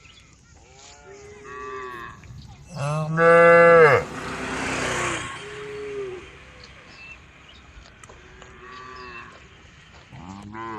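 Several cattle mooing in turn. The loudest is one long moo about three seconds in, followed by a short rushing hiss, and shorter moos follow near the middle and the end.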